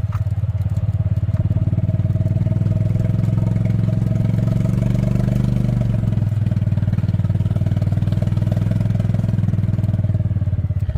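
A small engine running steadily with an even, pulsing low hum; its pitch rises slightly, then drops about six seconds in.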